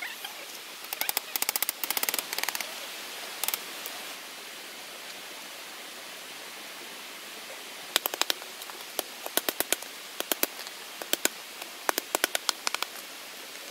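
Sharp clicks and cracks from hand work on bamboo: a fast clattering burst in the first few seconds, then after a pause a long run of separate sharp clicks, several a second, in the second half, over a steady hiss.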